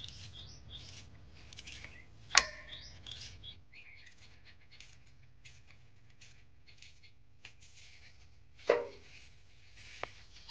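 Hands handling sliced onions in water in a steel bowl: faint scattered clicks, with a sharp knock about two seconds in and another short, loud knock about two seconds before the end.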